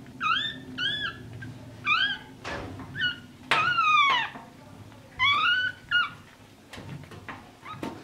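Newborn schnauzer puppies squealing and crying in short, high calls that rise and fall, about seven in all, with one longer falling cry about three and a half seconds in.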